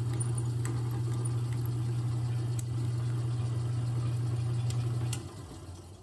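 Drill press motor running steadily with a low hum, switched off about five seconds in and winding down. A few light clicks from the handle block being handled on the bit.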